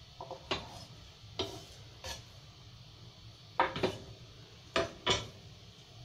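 Kitchen knife cutting konnyaku and knocking on a wooden cutting board: about seven short, sharp knocks at uneven intervals, the loudest coming in two quick pairs in the second half.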